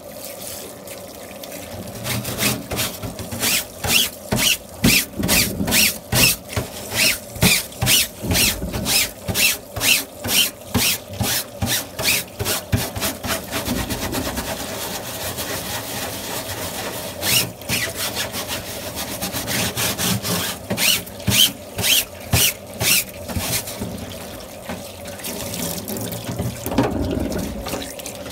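Rhythmic scrubbing strokes, about two a second, in two spells with a short pause between them: an air-conditioner filter being scrubbed.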